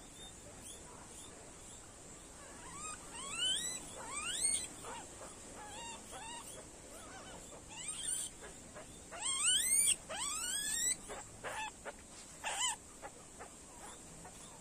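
Guinea pig squealing in distress while it is injected and handled, a run of short squeals that each sweep upward in pitch, coming in bursts from a couple of seconds in until near the end.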